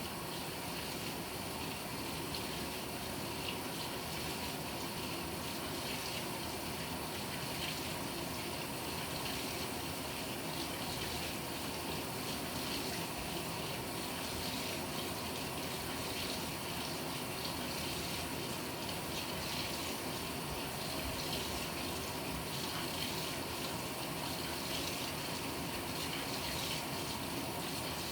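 Water pouring steadily into the tub of a Panasonic NA-FA100H9 top-loading washing machine as it fills for the wash.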